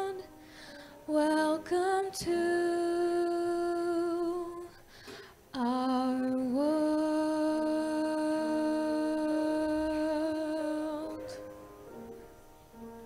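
Solo voice singing long held notes without clear words, closing a song. After the voice stops about eleven seconds in, soft instrumental notes carry on.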